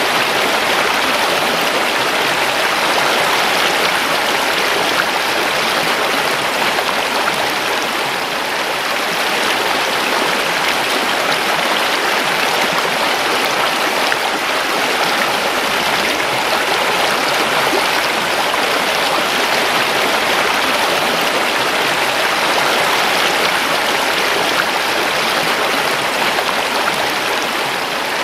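River water flowing and babbling over rocks in a steady rush, with no change in level.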